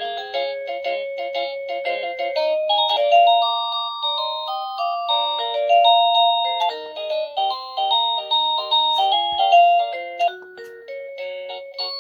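Wongkuo wireless video doorbell's chime playing an electronic melody tune, a quick run of clean beeping notes. Near the end the tune breaks off and a different chime melody starts, as the chime selection is changed.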